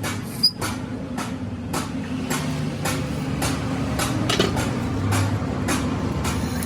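Sharp knocks on metal about twice a second over a steady machine hum.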